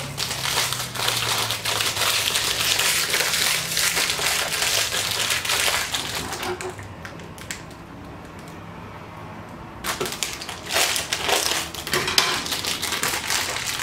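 Crinkling and crackling of a foil wrapper being handled and peeled open around a small blind-box figure. It is dense and continuous, falls quieter for a few seconds past the middle, then starts again.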